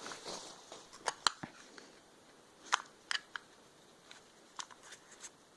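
Gear being handled: a short rustle at the start, then scattered sharp clicks and taps, about eight in all, a few coming in quick pairs.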